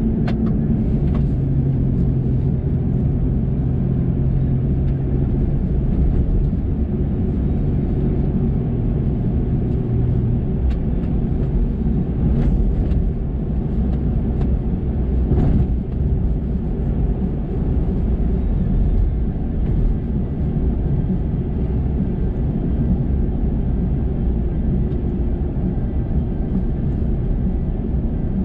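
Chevrolet Colorado Z71 pickup driving at steady speed, heard from inside the cab: a constant low rumble of engine and tyres on the road. A held engine hum fades out about ten seconds in, and a few faint ticks come through around the middle.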